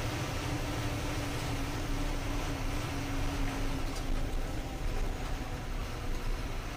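Truck engine running steadily with road noise, heard from inside the cab as the lorry drives.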